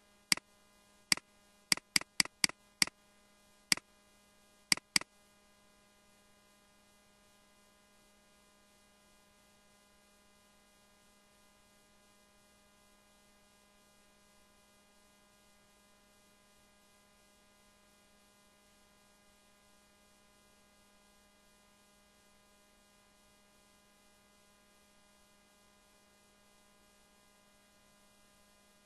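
A run of about eight sharp clicks in the first five seconds, several close together, then only a steady faint electrical hum with a few constant tones.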